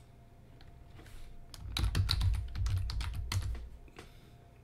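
Typing on a computer keyboard: a quick run of about a dozen key presses lasting around two seconds, starting about a second and a half in.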